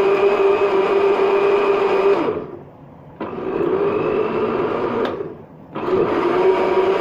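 Electric blender motor running fast, blending bananas with milk and sugar into a milkshake. About two seconds in it winds down and stops, starts again suddenly a second later, then stops once more after a click and restarts near the end.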